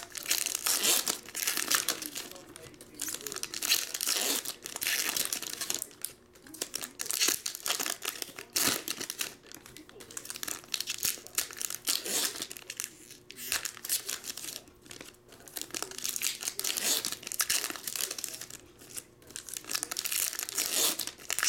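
Foil trading-card pack wrappers being torn open and crinkled by hand, in repeated bouts of rustling and tearing with short pauses between packs.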